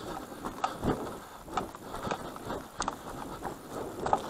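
A person's footsteps crunching over dry grass and loose stones on a slope, irregular steps about every half second to a second with rustling in between.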